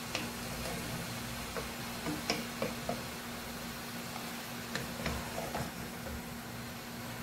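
Wooden spatula stirring rice noodles in a metal pot, with irregular light knocks and scrapes against the pot, over a steady low hum.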